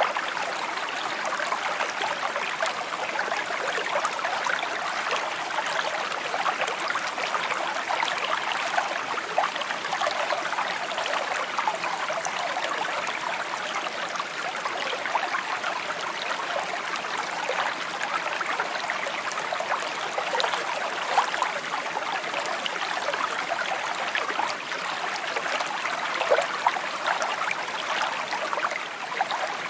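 Small stream babbling steadily over rocks, a continuous trickling and splashing.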